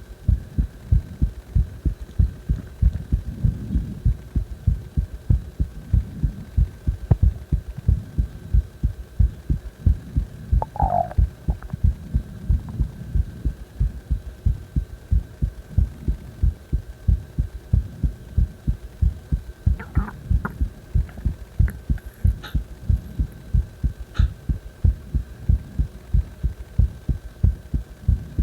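A person's heartbeat recorded close to the chest: a steady, regular rhythm of low thumps, a few a second, over a faint steady hum.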